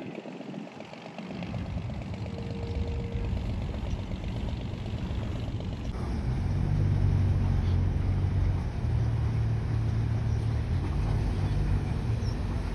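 Houseboat engine running with a steady low drone that grows louder, stepping up about six seconds in.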